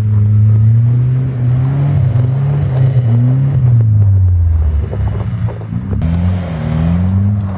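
Car engine revving hard as it drifts on an ice track, the pitch holding high, dropping about four seconds in, then swinging up and down several times with throttle changes near the end.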